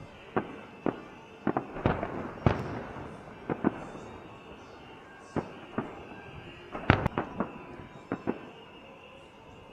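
Fireworks salute shells bursting overhead: about fifteen sharp bangs at uneven intervals, some in quick pairs or triples, over a steady background hiss.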